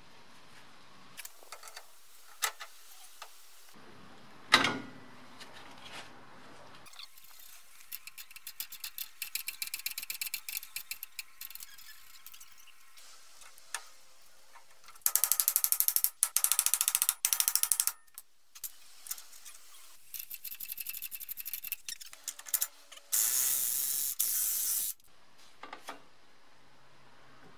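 Metal parts clinking and tapping as a brake disc is fitted to a BMW E30's front hub, then a socket ratchet clicking in quick runs as the hub nut is worked on. Several runs of clicking, two of them loud and dense.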